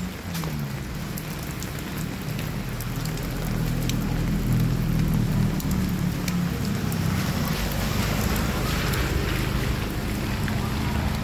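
Rain falling steadily on wet pavement, with scattered drop ticks. A low hum from a vehicle engine runs underneath.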